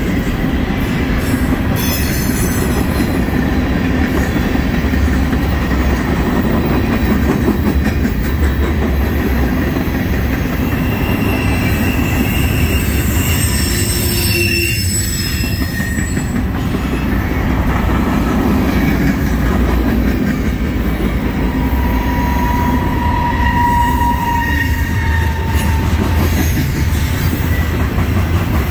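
Freight cars of a long mixed manifest train rolling past at speed: a steady rumble and clatter of steel wheels on rail. Thin, high wheel squeals come and go, most clearly around the middle and again about three-quarters of the way through.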